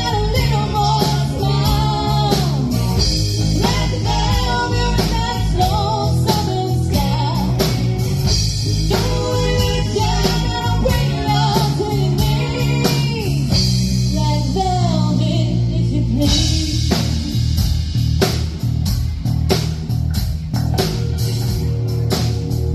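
Live rock band playing a bluesy rock song: a singer over electric guitar, bass and drum kit. The vocal stops about 16 seconds in and the band plays on without it, the drums hitting hard.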